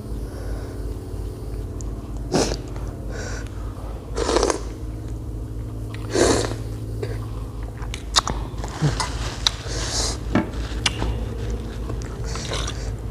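A person eating close to the microphone: chewing and biting, with three louder crunching or slurping bursts about two seconds apart, then a run of sharp little clicks and smaller bites. A steady low hum lies underneath.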